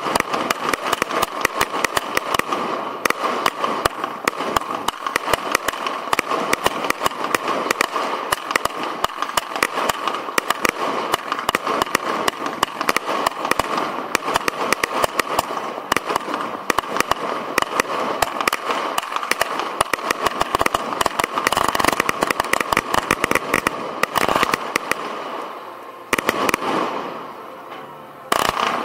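Firework display heard from the launch site: a dense, continuous stream of sharp crackles and bangs from launching and bursting fireworks. It thins out and fades about 25 seconds in, then one loud bang comes near the end.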